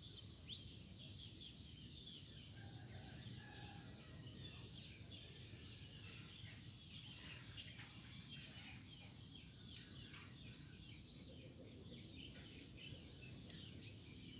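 Faint chorus of small birds chirping and twittering in the background, many short calls overlapping, over a low steady background rumble.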